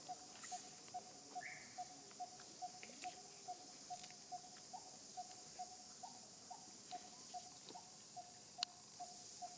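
Outdoor ambience: a steady high drone of insects, with a bird repeating one short note at an even pitch a little over twice a second. A few faint ticks, and one sharp click near the end.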